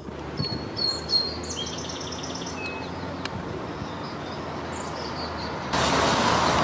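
Birds chirping, with a quick run of repeated notes in the first couple of seconds, over steady outdoor background noise. Near the end, traffic noise abruptly gets much louder.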